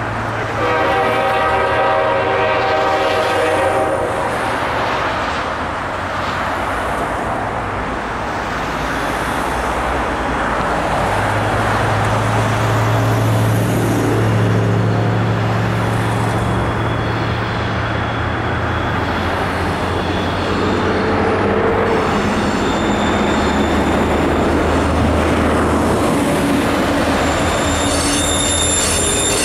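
Diesel locomotive air horn sounding a multi-note chord for about three seconds near the start, from an approaching train led by an EMD GP40. A steady low diesel drone and rail noise build as the train nears, mixed with passing road traffic, and high wheel squeal comes in near the end.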